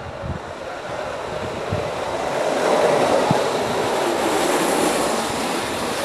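Several racing carts on steel ball-bearing wheels rolling fast over asphalt, their bearings making a loud grinding rumble. The rumble builds as the carts approach and is loudest as they pass.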